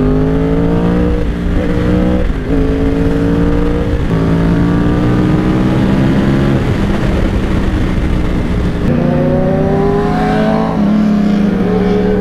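Yamaha R1's inline-four engine accelerating hard in full-power mode, its pitch climbing and dropping back with quick upshifts about one, two and a half and four seconds in, over heavy wind rush. The engine eases off for a few seconds, then pulls up through the revs again near the end.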